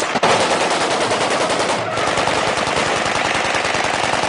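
Sustained automatic gunfire from several rifles and machine guns fired in celebration, rapid shots running together in a continuous rattle with only a momentary break just after the start.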